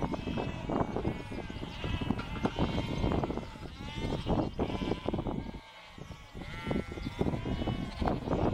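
A penned flock of sheep bleating, many calls overlapping one another, with frequent short knocks among them and a brief lull just before six seconds in.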